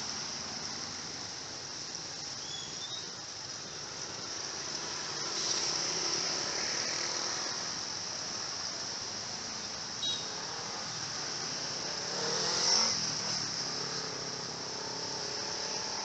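A large flock of edible-nest swiftlets twittering overhead: a dense, steady, high-pitched chirping chorus. A louder swell of broader noise rises and fades about twelve to thirteen seconds in.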